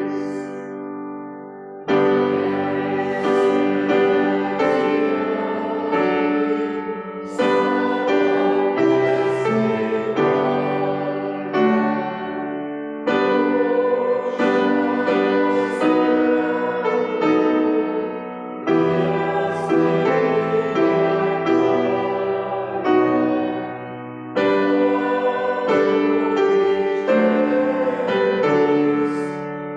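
Congregation singing a slow Lutheran hymn to keyboard accompaniment, in sustained phrases of about five to six seconds with short breaths between them.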